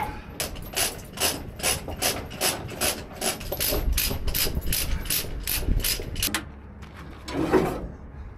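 A ratchet tie-down being cranked to tension a load, its pawl clicking in a steady rhythm of about three strokes a second for some six seconds. One louder clunk follows near the end.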